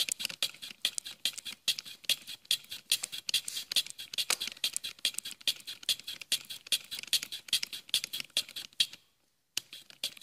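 Gear teeth being cut on a lathe by a broaching tool scraping through a blue gear blank, a rapid run of short, sharp scratchy cutting strokes. It breaks off about nine seconds in, then a few more strokes come just before the end.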